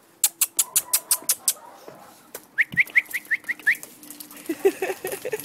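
A bird calling a quick series of about seven short rising chirps, after a rapid run of sharp clicks.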